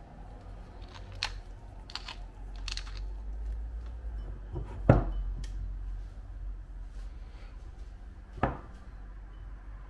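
Kitchen handling sounds during food preparation: a few light clicks in the first three seconds, a loud knock about five seconds in and another near the end, over a low steady hum.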